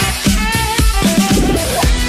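Background instrumental music with a steady drum beat, about two kick-drum hits a second, under a pitched melody.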